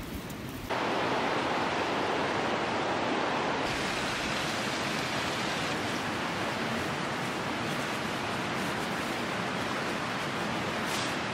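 Steady rushing of a river flowing over rocks, cutting in abruptly just under a second in.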